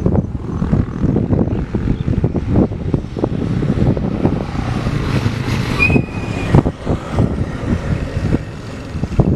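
Road vehicle noise: a steady low rumble with irregular knocks or buffets, and a brief high whistle-like tone about six seconds in.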